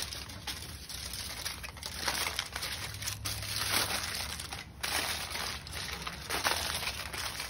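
Aluminium foil crinkling and crumpling as it is folded around a steak by hand and with metal tongs, a continuous run of irregular crackles.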